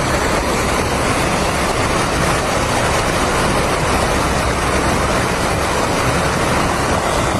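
Steady, unbroken rushing of water, loud and even, with no pitch or rhythm.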